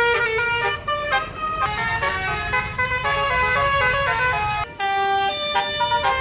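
A tour bus's musical telolet horn playing a quick melody of short stepped notes over the low rumble of the bus engine. The tune breaks off briefly about three-quarters of the way through, then carries on with new notes.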